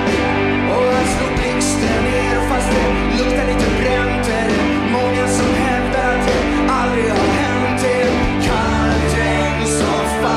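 A rock band playing live: a man sings the lead over electric guitars, keyboard and a steady drum beat, with other voices joining in.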